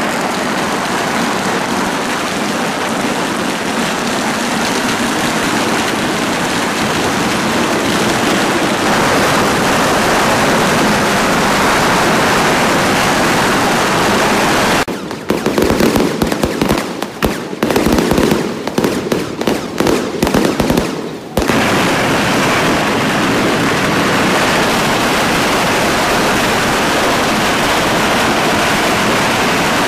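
A long string of firecrackers going off in dense, continuous crackling, breaking in the middle into a stretch of separate, irregular loud bangs before the steady crackle resumes.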